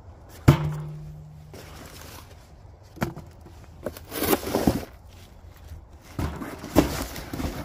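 A sharp knock on a rusty metal burn barrel, which rings with a low hum for about a second, followed by cardboard and crumpled newspaper rustling and scraping as a box of paper is set down into the barrel.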